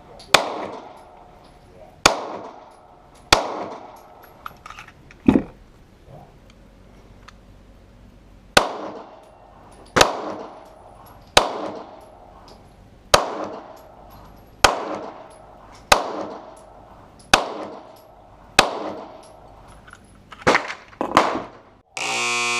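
Hi-Point 9mm firing about a dozen single shots, one every second and a half or so, each with a ringing echo, with a longer pause partway through. A few lighter knocks follow, then a steady buzzer starts near the end.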